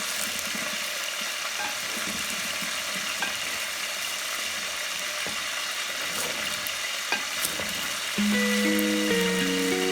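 Food sizzling as it fries in a pan, an even hiss with a few light clicks. About eight seconds in, background music with held synth notes comes in over it.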